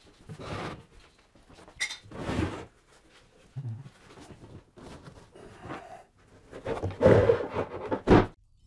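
Scattered wooden thunks, knocks and scrapes of a large wooden staircase section being handled and shifted on a wooden workbench, with a louder pair of knocks near the end.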